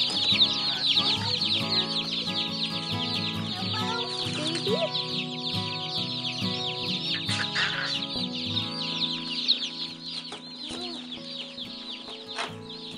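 A shipping box of Cornish Cross broiler chicks peeping nonstop, a dense chorus of many short, high, falling cheeps, over background music.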